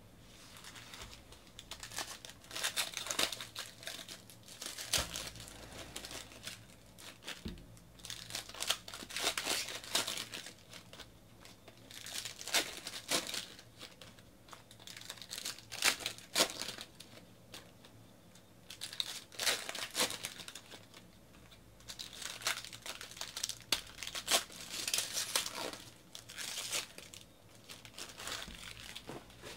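Foil wrappers of basketball trading-card packs being torn open and crinkled by hand, in repeated crackling bursts a few seconds apart with short quieter gaps.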